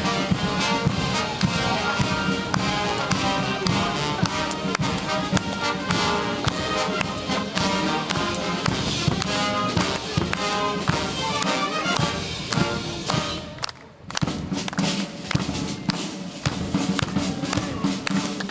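Military marching band playing a march on brass and drums, with a steady drum beat. The music dips briefly about fourteen seconds in, then carries on.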